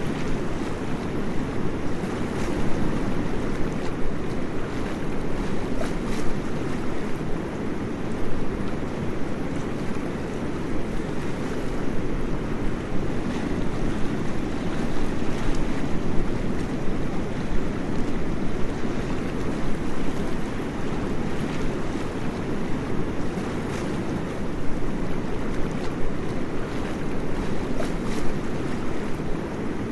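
Waterfall: a steady, deep rush of falling water that holds even throughout.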